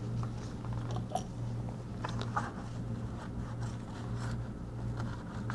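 Faint small scrapes and ticks from handling a tablet circuit board and its charging port on a workbench, over a steady low electrical hum.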